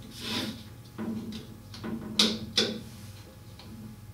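Pieces on a wall-mounted demonstration chessboard being moved by hand: several sharp clicks and knocks as pieces are taken off and set down on their squares, the loudest about two seconds in.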